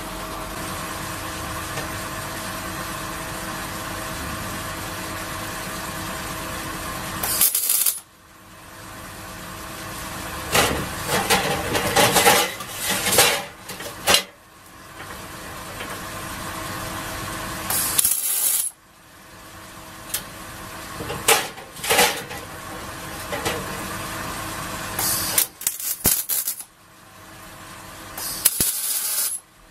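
MIG welder, an ESAB C200i, MIG welding stainless steel with 316 stainless wire at its minimum power setting: a steady machine hum, broken by several short bursts of welding arc crackle, each about a second or less, as short beads and tacks are laid.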